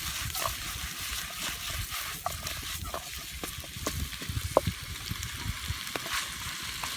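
Salmon, onion and spring onion stir-frying in a wok, sizzling steadily, with scattered clicks from the stirring.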